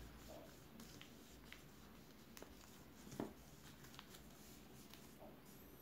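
Faint rustling and creasing of a sheet of paper being folded by hand, with scattered soft taps and one sharper crinkle about three seconds in.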